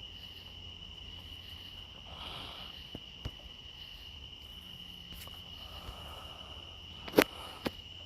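A steady high-pitched whine held on one pitch, over a low hum, with a few sharp clicks; the loudest click comes about seven seconds in.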